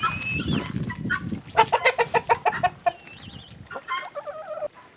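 Chickens clucking, with a quick run of short clucks from about a second and a half to three seconds in. A low crunching noise is heard in the first second and a half.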